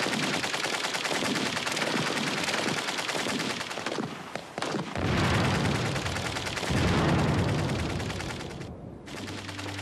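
Heavy gunfire: a dense, continuous fusillade of rapid shots from machine guns and rifles. Deeper, louder blasts come about five and seven seconds in.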